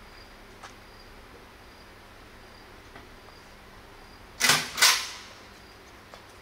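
Insects chirping faintly in an evenly repeated pattern, with two loud sharp bangs under half a second apart about four and a half seconds in.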